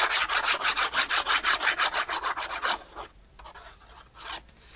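Plastic glue bottle's applicator tip scrubbed quickly back and forth on a paper tag, spreading glue: fast, even rubbing strokes for nearly three seconds, then one more short scrape near the end.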